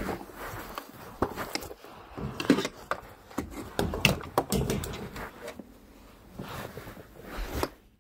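Irregular scraping, rustling and knocking as things are shifted about on a carpeted floor, with sharp knocks scattered throughout.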